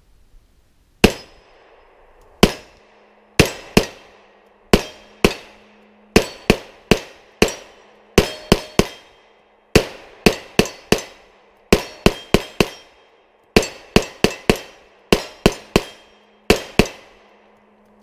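Auto-Ordnance Thompson M1 short-barrelled rifle in .45 ACP fired semi-automatically, about thirty shots in all, one at a time and in quick strings of two to four. Each shot has a short echoing tail.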